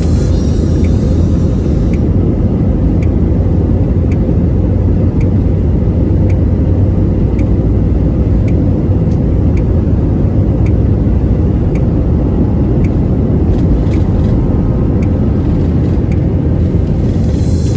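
Jet airliner cabin noise during takeoff: a loud, steady rumble with light clicks recurring about once a second.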